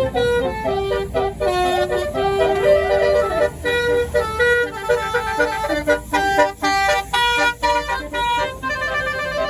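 Bus basuri telolet horn playing a quick melody of short, changing pitched notes, with the bus engine rumbling underneath.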